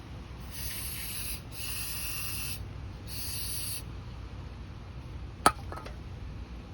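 Aerosol brake cleaner sprayed in three short hissing bursts to clean out carburetor parts, followed a couple of seconds later by one sharp click.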